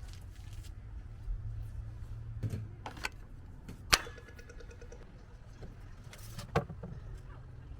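Scattered knocks and clunks inside a van, five or so sharp ones with the loudest about four seconds in, over a low steady rumble.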